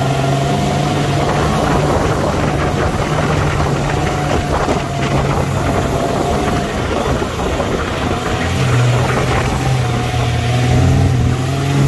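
Sandrail's engine running as it drives over sand dunes, mixed with rushing wind noise in the open cage. The steady engine note eases off in the middle and comes back strongly near the end.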